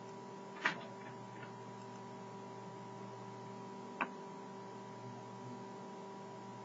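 Steady electrical hum with several steady tones, broken by two sharp computer mouse clicks, one under a second in and a smaller one about four seconds in.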